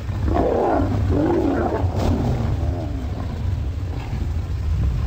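Lions growling and snarling over a fresh kill, feeding aggression between males, strongest in the first three seconds and then fading to low rumbling.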